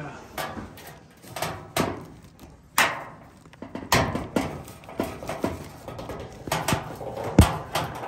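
Irregular clicks and knocks of hands handling parts at the metal drain pan of an air conditioner's indoor unit, with a heavier thump near the end.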